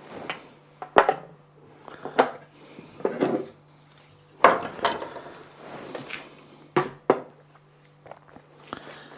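Plumbing fittings being handled while PTFE thread tape is wrapped on: several sharp clinks, the loudest about a second in and near four and a half seconds, with short rustling sounds between them.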